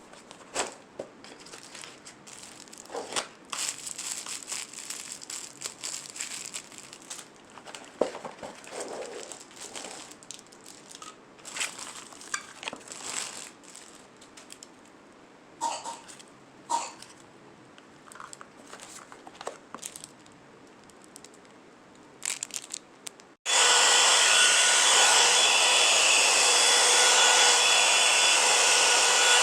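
Scattered light rustling and handling noises, then about 23 seconds in a one-step hot air brush (a blow dryer with a brush head) starts abruptly and runs steadily: a loud rush of air with several faint steady tones in it.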